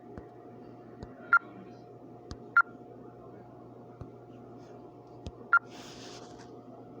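Three short, high electronic beeps, about 1.4, 2.6 and 5.6 seconds in, each coming just after a faint click, over a steady electrical hum.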